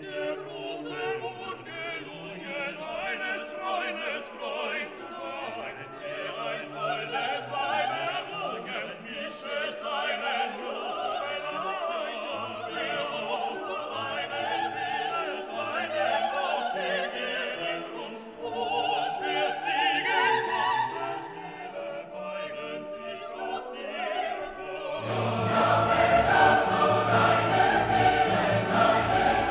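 Background classical music: orchestra with operatic singing. It grows louder and fuller near the end.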